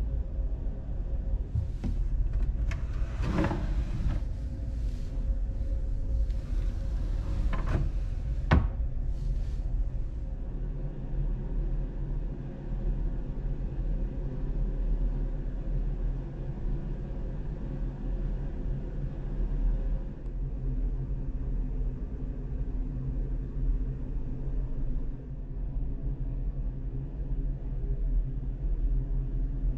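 Steady low rumbling hum, with a few sharp knocks and clicks in the first ten seconds.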